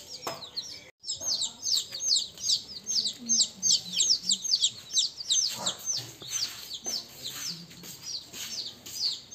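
Brooding chicken chicks peeping: many short, high, downward-sliding peeps from several chicks at once, overlapping in a rapid stream. The sound drops out briefly about a second in.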